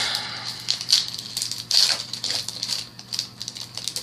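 Foil trading-card booster pack being torn open and crinkled, with cards rustling: a run of short, irregular crackles.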